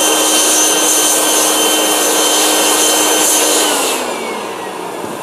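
Handheld electric air blower blowing dust off an electric power-steering motor's armature: a steady motor whine over rushing air. It is switched off about three and a half seconds in, its pitch falling as it winds down.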